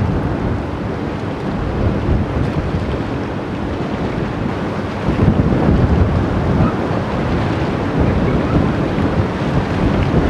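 Wind buffeting the microphone over the rush of river water, the gusts growing louder about halfway through.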